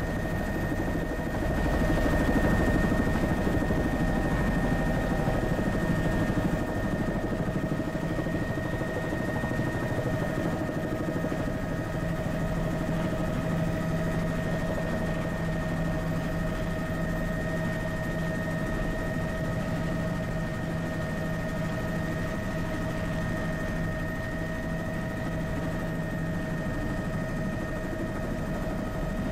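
Helicopter turbine engine running steadily on the ground, a constant high whine over a low rumble, a little louder in the first few seconds.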